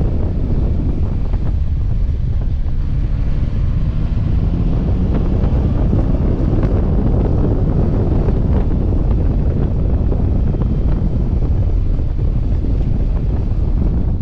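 Yamaha Tracer 9 GT's three-cylinder engine running as the motorcycle rides along, under heavy wind noise buffeting the microphone. The engine note rises in pitch a few seconds in, then levels off.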